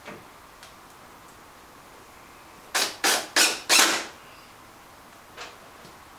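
Cordless drill-driver driving a screw into wood in four quick bursts, about a third of a second apart, about three seconds in. A faint click follows a couple of seconds later.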